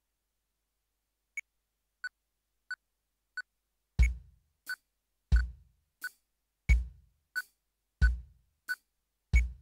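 Electronic drum module's metronome click: after a moment of silence, four light count-in clicks, the first higher in pitch, then a steady click at about 90 beats a minute with a deep thump on every other beat.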